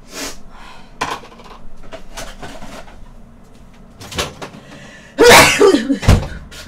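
Household handling noises at a countertop microwave oven: a string of sharp clicks and knocks as the door and a packet are handled, then a loud clatter about five seconds in.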